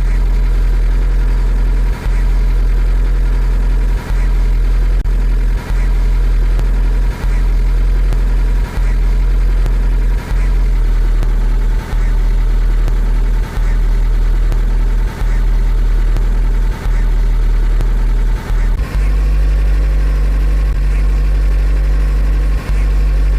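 Car engine idling after a cold start, a steady hum. The idle speed drops slightly about ten seconds in and rises again near the end, with brief dips in loudness about every second and a half.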